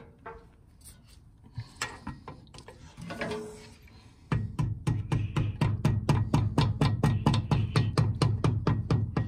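Adjustable wrench tapping a Mercedes park brake cable fitting into its seat: a few light, scattered taps, then from about four seconds in a rapid, even run of metal knocks, about five a second, that stops near the end.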